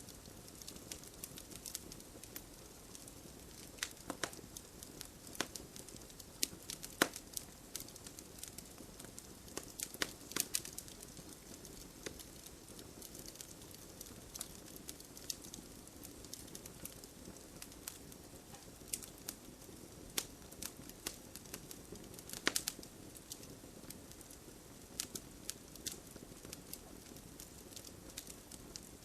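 A fire crackling: irregular sharp pops and snaps, several clustered around a few moments, over a soft steady hiss.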